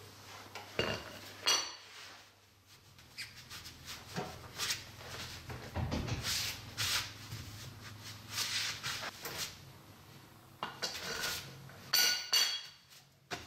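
Irregular metallic clinks, knocks and rubbing from hand work on a jacked-up car's front wheel, as the wheel is spun by hand and rocked to check the wheel bearing for play. The sharpest clinks ring briefly, with a pair of them about a second in and another cluster near the end.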